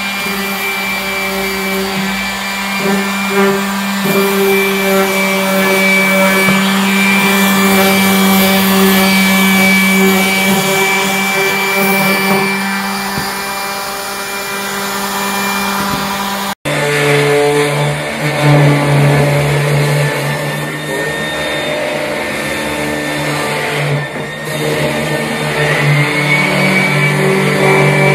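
Electric random orbital sander running steadily on pine boards, a continuous motor whine. The sound drops out for an instant about two-thirds of the way through and the sander runs on with a slightly lower hum.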